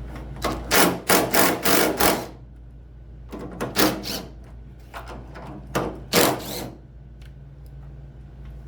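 Impact wrench with a 1/2-inch socket rattling in three short bursts, loosening three tailgate bolts; the first burst is the longest.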